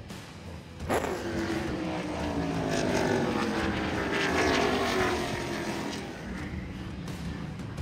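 A race car engine passing at speed, cutting in suddenly about a second in, its pitch falling steadily as it goes by and fades.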